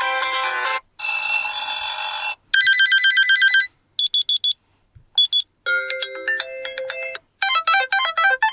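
Meizu M5s default alarm tones previewed one after another: a string of short electronic melodies and beeping patterns, each breaking off after a second or so before the next begins. One is a fast run of beeps.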